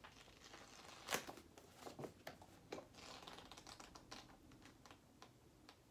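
Faint rustle and ticking of paper pages being riffled and flipped through in a thick handwritten notebook, with a few slightly louder page flicks about a second and two seconds in.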